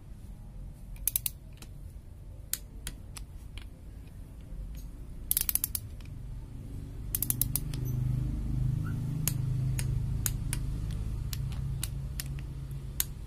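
Ratchet of a Nakahara torque wrench clicking in short rapid runs and then single ticks as the bolts of the rear crankshaft seal housing are tightened. A low steady hum joins about halfway through.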